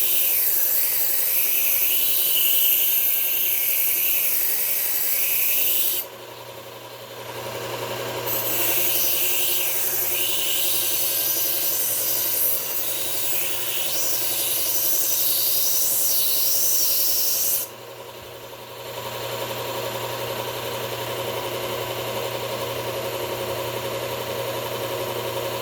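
Knife blade ground against a running sanding belt on a belt sharpener: a high grinding pass of about six seconds, a short pause, then a second pass of about nine seconds, raising a burr all the way along the edge. After about eighteen seconds the blade comes off and only the machine's steady motor hum runs on.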